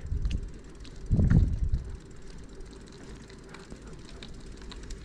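Wind rumbling on a handlebar-mounted camera's microphone as a bicycle rolls slowly along a concrete road, with a few faint clicks. The rumble swells louder about a second in.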